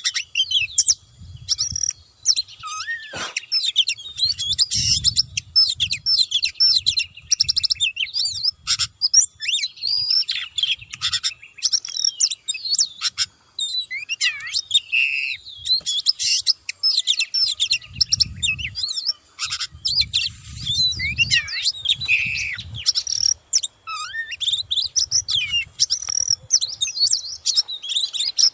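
Oriental magpie-robin (kacer) singing without pause: a fast, varied run of clear whistles, slurred glides, chirps and short trills.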